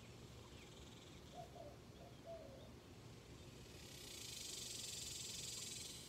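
Faint outdoor ambience with a low background rumble and a couple of brief chirps. A steady high hiss comes in about two-thirds of the way through and drops away near the end.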